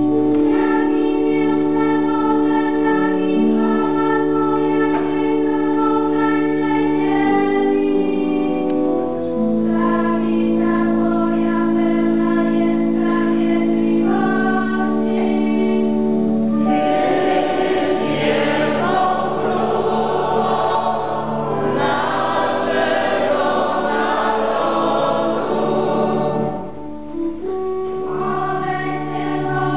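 Many voices singing together in church, a liturgical chant with long held notes, fuller and denser through the middle and dipping briefly near the end.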